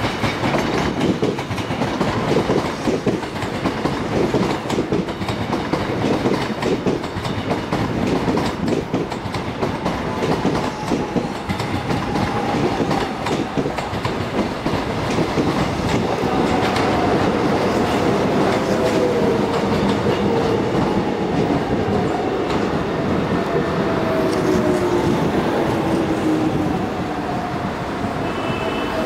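Korail commuter electric trains at a station: a Class 341000 Line 4 train rolls past with wheel clatter over the rail joints, then a Class 311000 Line 1 train pulls in. Its motors give a whine that falls steadily in pitch as it brakes to a stop.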